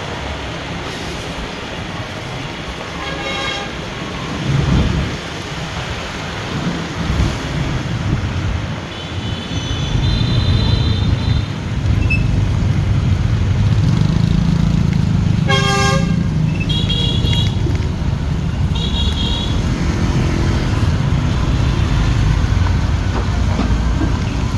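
Highway traffic running, getting louder from about ten seconds in, with vehicle horns honking several times; the loudest blast comes about fifteen seconds in.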